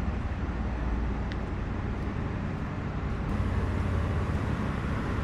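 Steady city street traffic noise: a low rumble of passing vehicles.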